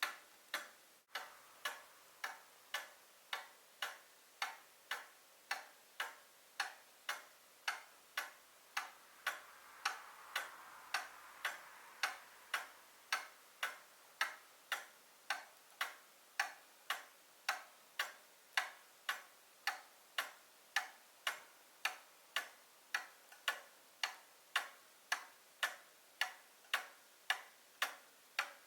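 A 130-year-old quail cuckoo clock's pendulum movement ticking steadily, about three crisp ticks every two seconds.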